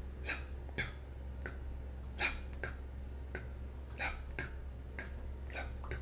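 A man imitating an S4 gallop heart rhythm with his mouth: short, soft, breathy beats in repeating groups, about one cycle every two seconds.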